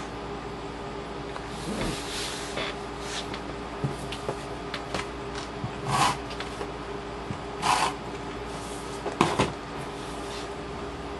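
Paper crafting at a table: several short rasping strokes of a hand-held tape runner laying adhesive on the back of paper die cuts, the loudest two about 6 and 8 seconds in, among light clicks and taps as the pieces are handled and pressed down. A steady low hum sits underneath.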